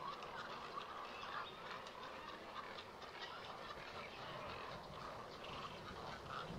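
Mixed waterbird nesting colony of herons, egrets, roseate spoonbills and cormorants calling together: a steady din of many short, overlapping calls.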